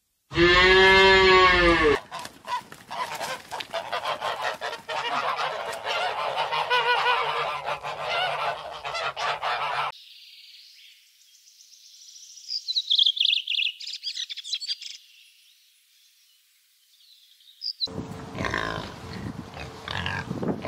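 A cow gives one moo that rises and falls in pitch. Then a dense flock of birds honks loudly for about eight seconds, followed by fainter high chirping, and near the end a pig grunts.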